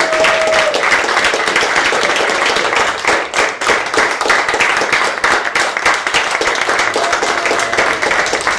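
Theatre audience applauding steadily: many hands clapping at once.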